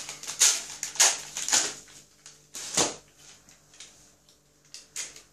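Plastic packaging of dog-chew sticks crinkling and tearing as it is opened by hand, in several short crackly bursts, the loudest in the first second and a half and another about three seconds in.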